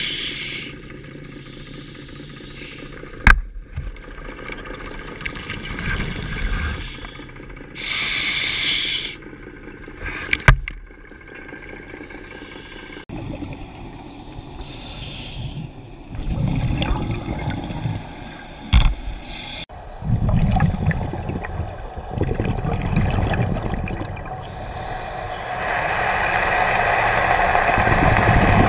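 Scuba diver breathing through a regulator underwater: a hiss on each inhalation every several seconds, each followed by the low bubbling rumble of exhaled air. Three sharp knocks come through along the way.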